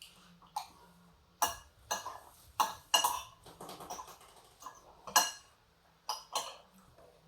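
Cutlery clinking and tapping on a plate and dishes while eating, in about eight separate sharp clinks with a short rustle in the middle.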